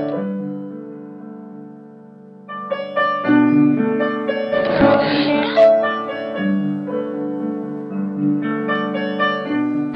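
Instrumental background music led by piano. It dips quieter early on, then comes back fuller about two and a half seconds in.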